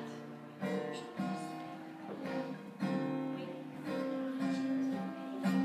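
Music played on strummed acoustic guitar, with chords struck again every second or so.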